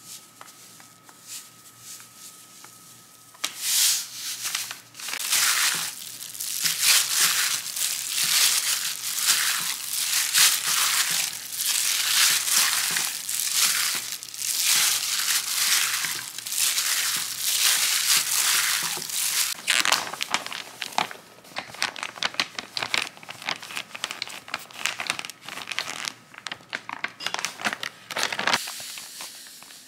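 Food frying in hot oil, a dense irregular crackle that starts abruptly a few seconds in and cuts off near the end.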